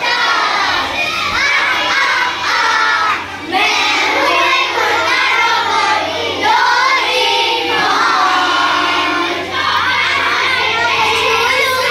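A roomful of children singing together in chorus, loud and lively, with some voices shouting, and a brief break about three seconds in.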